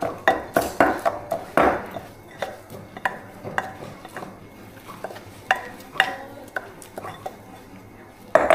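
Kitchen utensils knocking and clinking against pots and dishes at an irregular pace: a quick run of louder knocks in the first two seconds, then scattered clinks and one more loud knock near the end.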